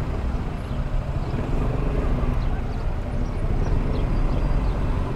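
Honda Forza 250 scooter's single-cylinder engine running at crawling pace in congested traffic: a steady low rumble with the surrounding traffic.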